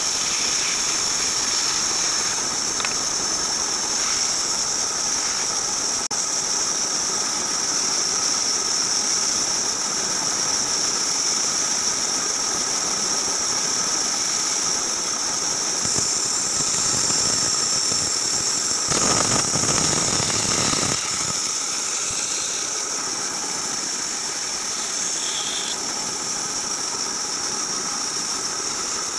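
Bandsaw running and cutting through a thick wooden beam, with a steady high-pitched whine over the noise of the blade in the wood. It briefly gets louder for about two seconds about two-thirds of the way through.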